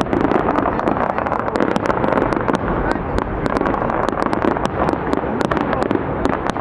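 Fireworks going off: a steady, dense crackle of many small sharp pops over continuous loud noise.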